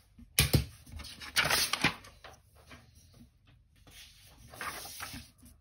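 Sheets of paper being handled and slid across a wooden board, with a sharp tap about half a second in and a louder rustle a little later.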